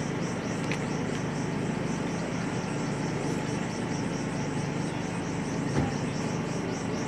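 Steady outdoor arena ambience: a continuous hum and hiss with a faint, regularly pulsing high chirr, and a single short knock about six seconds in.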